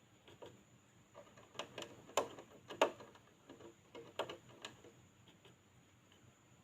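A hamster making a run of small irregular clicks and scratches, with two louder clicks near the middle, the crunching 'kreuteeuk' sound the video is about.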